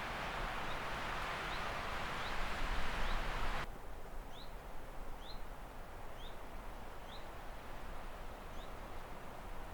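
A bird repeating one short, rising chirp about once every second. Over the first third it sits over a steady rushing noise, which cuts off suddenly.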